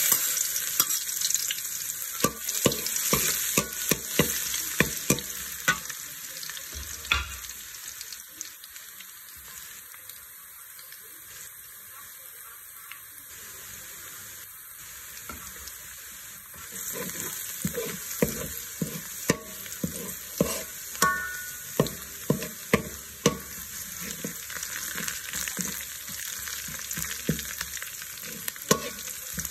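Chopped garlic sizzling in hot oil in a metal wok, stirred with a metal spatula that scrapes and knocks against the pan. The sizzle is loudest in the first few seconds and settles to a steadier hiss, and the spatula strikes come quick and frequent in the second half.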